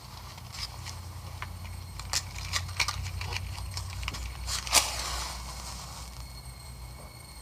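Low steady rumble of film ambience with scattered soft clicks and creaks, the sharpest about five seconds in.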